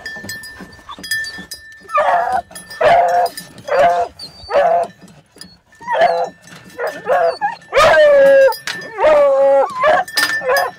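Beagles barking and howling in a dog box: about ten loud, pitched calls, each under a second long, starting about two seconds in, with the longest and loudest one near the end.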